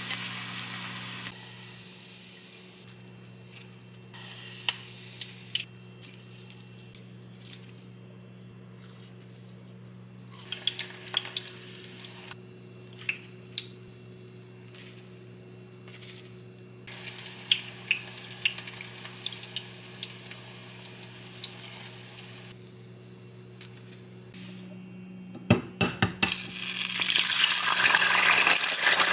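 Battered perilla leaves deep-frying in hot oil, the oil sizzling on and off between quieter stretches with light clicks of wooden chopsticks. All of it sits over a steady low hum. Near the end comes a quick cluster of sharp cracks, an eggshell breaking, then a louder steady hiss.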